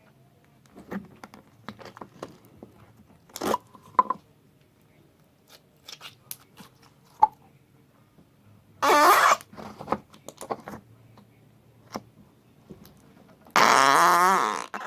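Two fart sounds: a short one about nine seconds in, and a longer, louder one near the end that wavers in pitch. A few faint clicks come earlier.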